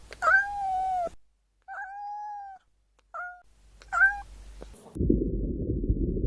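Domestic cat meowing: a run of four or five meows, the longest about a second and some short and clipped. About five seconds in, a steady low rumbling noise sets in.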